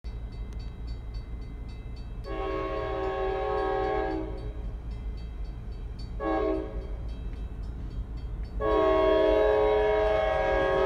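EMD GP38-3 locomotive air horn sounding for a grade crossing: a long blast, a short one, and a long one, the last the loudest. Each blast is a chord of several notes. A bell rings steadily underneath at about three strokes a second.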